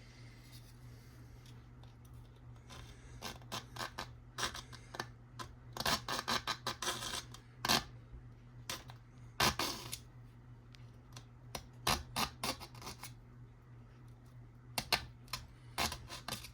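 Hobby knife cutting and scraping at a polystyrene model kit part, in irregular scratches and sharp clicks, busiest in the middle.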